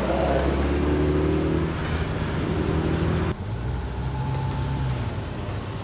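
A car's engine and exhaust running as it drives off, the engine note easing down and then holding steady. It drops off suddenly a little over halfway through, leaving a lower, quieter engine note.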